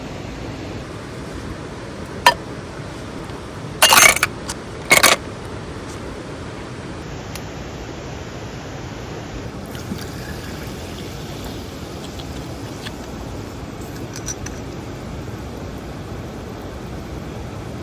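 Steady rushing of a mountain stream. A sharp click about two seconds in and a short cluster of loud knocks around four and five seconds in break through it.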